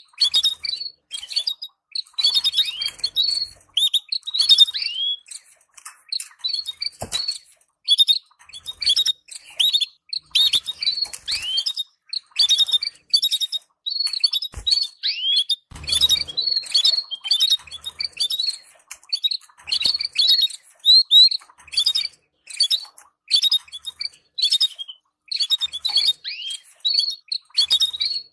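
Canaries calling with rapid, short chirps, many of them quick downward-sweeping notes repeated several times a second, with a few soft thumps mixed in.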